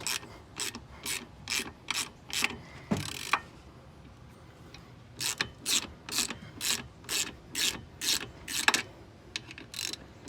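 Ratchet wrench with a 13 mm socket loosening a brake caliper bolt: short rasping clicks on each back-swing, about two a second, with a pause of a couple of seconds partway through.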